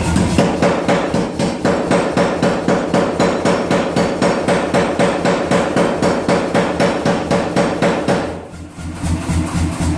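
Power hammer striking a hot 1-inch steel bar in a fast, steady rhythm of about five blows a second, forging a half-inch tenon. The blows stop about eight and a half seconds in and the hammer runs on without striking.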